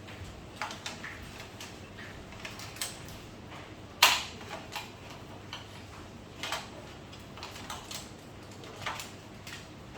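Scattered light clicks and taps of parts and tools being handled during TV repair work, with one louder sharp knock about four seconds in.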